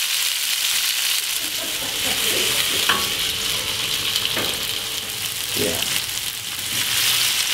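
Chopped tomatoes sizzling steadily in hot ghee with kalonji seeds in a pan, with a few faint knocks along the way.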